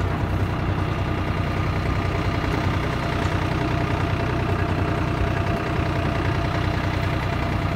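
Farm tractor engine running steadily while pulling a wagon, heard from the wagon just behind it.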